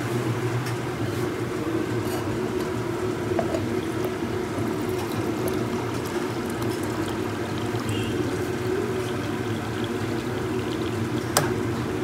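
Water running from the tap of a plastic water container into a steel tumbler, over a steady low hum. A single sharp click comes near the end.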